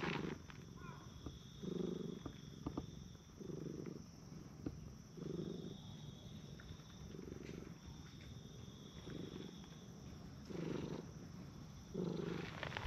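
A cat purring close by while being stroked, a soft low rumble that swells in regular pulses about every two seconds with each breath.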